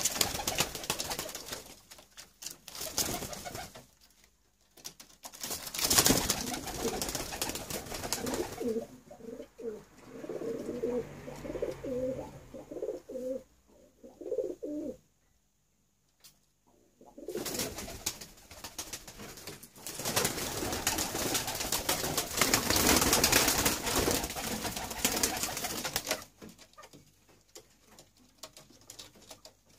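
Teddy pigeons flapping and scuffling on a wooden perch, with a pigeon cooing in a run of low calls from about nine to fifteen seconds in.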